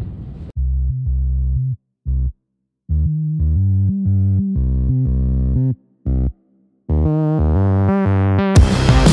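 Background music: a synthesizer bass line playing in short stop-start phrases with silent gaps between them, breaking into a louder, denser full-band section near the end.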